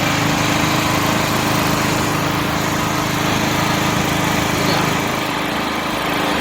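Kirloskar iGreen petrol portable generator's engine running steadily at a constant speed just after a manual start, with the choke still on.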